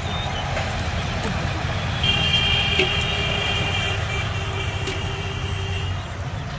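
A motor engine running steadily in the background, with a held high-pitched tone joining about two seconds in and lasting about four seconds.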